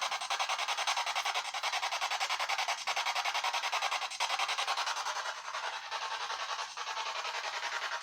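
A steady hiss, like static, pulsing rapidly and evenly at about seven beats a second, with a few faint clicks.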